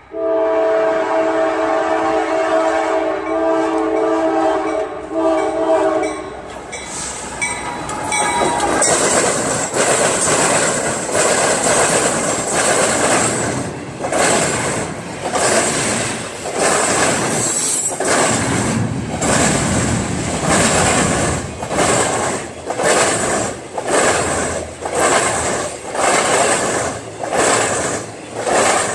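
Freight locomotive's air horn sounding one long chord of about six seconds as the train approaches. The locomotive then passes, and double-stack intermodal container cars go by close at hand in a loud, rushing clatter that rises and falls about once a second as the cars pass.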